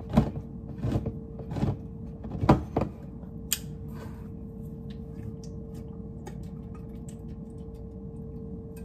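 A metal food can knocking and clinking as it is handled: several knocks in the first three seconds and a sharp click about three and a half seconds in, over a steady hum.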